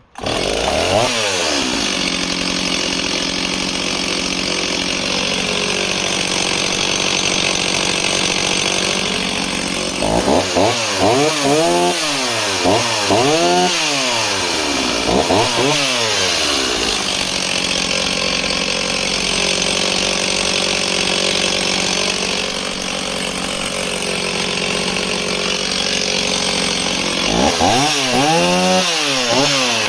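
Two-stroke chainsaw engine running at idle and revved up and back down in quick bursts, a group of blips about a third of the way in and another near the end. It runs cleanly, in the owner's word "impeccable".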